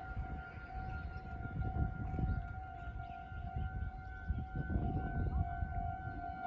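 Japanese railway level crossing warning bell ringing, a steady high tone that carries on without a break, over a low rumbling noise.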